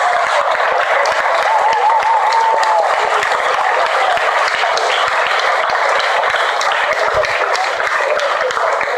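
Audience applauding steadily, with a short wavering high-pitched sound about one and a half seconds in.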